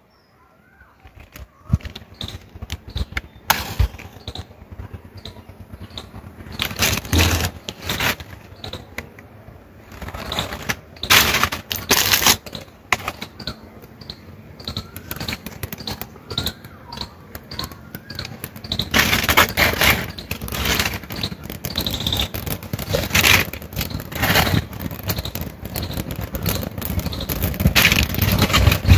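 Dry leaves crackling and rustling as they catch and burn in a small open fire, the crackling getting denser and louder toward the end as the flames grow.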